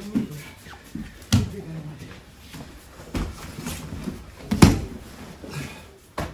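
Jiu-jitsu grapplers in gis scuffling and falling on foam tatami mats: three sharp thuds of bodies hitting the mat, the loudest about two-thirds of the way through, with quieter shuffling between them.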